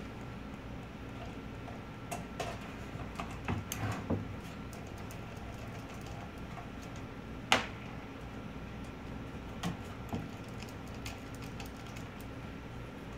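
Hard-drive mounting screws being unscrewed from a desktop computer case: scattered small clicks and taps of the screwdriver and screws on sheet metal, with one sharper click about halfway through, over a faint steady hum.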